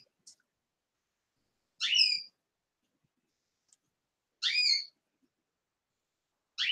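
Cockatiel calling: short, loud, rising whistled calls repeated about every two seconds.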